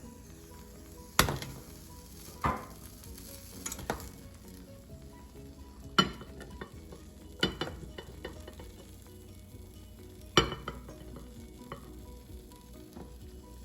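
A spoon scooping cooked rice out of a pot, with scraping and about six sharp knocks of the spoon against the pot. Faint background music runs underneath.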